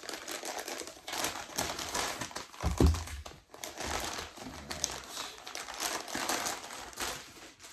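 An Amazon paper mailer being opened by hand, its brown paper crinkling and rustling in a dense run of crackles, with one dull thump about three seconds in.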